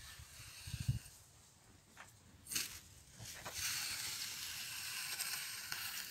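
Steel blade of a restored J&R Forgan ripping tine striking and dragging through loose garden soil: a dull thud about a second in, a sharper strike, then a steady scraping hiss for the last few seconds.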